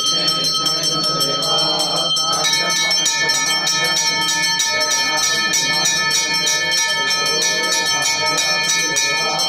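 Temple hand bell rung rapidly and continuously during the ritual bathing of the idols, its overlapping ringing tones shifting to a different set about two and a half seconds in.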